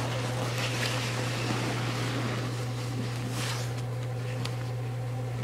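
A steady low hum, with a few faint scuffs and crunches over it.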